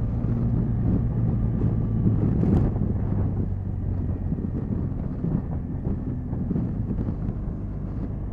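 Motorcycle engine running steadily under way, with wind buffeting the microphone.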